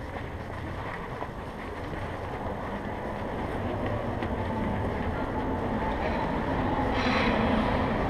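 Steady rumbling noise from a body-worn camera moving with someone walking through an indoor mall, mixed with the building's background hubbub. It grows gradually louder, with a brief burst of noise about seven seconds in.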